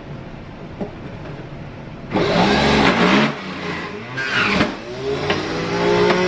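Electric juicer motor grinding ginger. It starts about two seconds in and runs in loud spurts that dip and pick up again, then near the end winds up to a steady, even running pitch.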